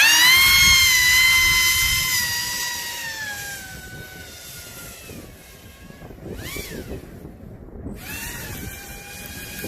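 Pro Boat Aerotrooper RC airboat's electric motor and air propeller whining at high throttle, then slowly dropping in pitch and fading as the throttle backs off. A short rise-and-fall throttle blip comes about midway, and the whine climbs again near the end.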